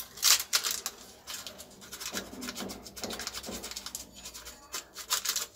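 Small plastic packet of baking powder crinkling and being torn open by hand: a run of sharp crackles and rustles.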